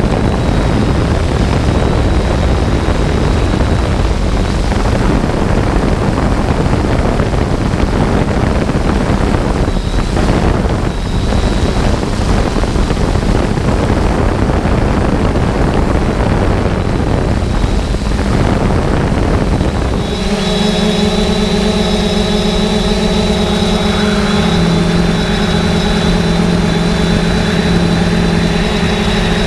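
3DR Solo quadcopter's motors and propellers humming steadily, mixed at first with heavy wind rushing over the microphone. About two-thirds of the way through, the wind noise drops and the propeller hum comes through clearly, shifting slightly lower in pitch a few seconds later.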